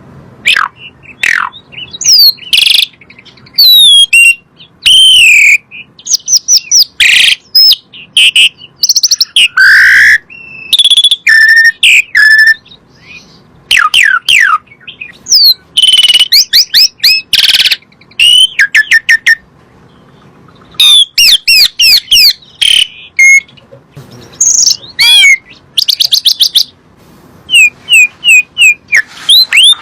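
Asian pied starling (jalak suren) singing a loud, varied song of whistles, chirps and rapid rattling phrases, broken by short pauses.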